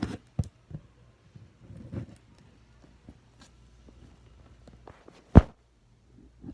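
Toy packaging being handled and pulled open by hand: scattered rustles and small knocks, with one sharp knock about five seconds in.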